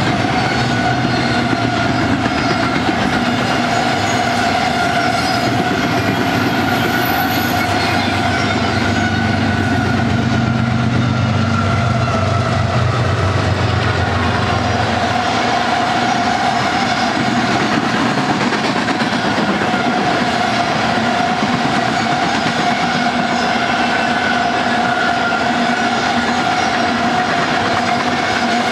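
Freight train cars rolling past at close range, double-stack container well cars and then tank cars, with a steady rumble and clatter of steel wheels on rail. A steady ringing tone runs along with it, and a deep hum drops out about halfway through.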